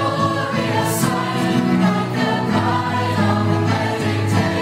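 Choir singing a sacred piece from an Easter Passion service, accompanied by violin and piano.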